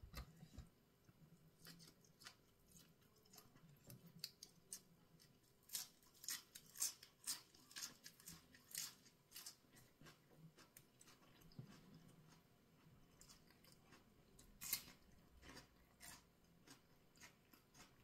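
Close mouth sounds of chewing a grilled-pork salad and raw vegetables: a run of short, crisp crunches, thickest about four to nine seconds in and again around fifteen seconds.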